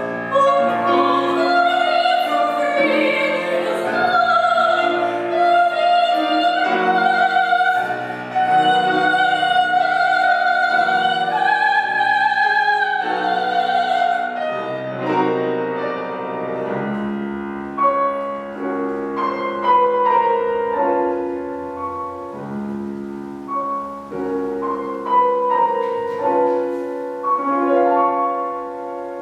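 Soprano singing a German art song with piano accompaniment. About halfway through the voice stops and the piano plays on alone.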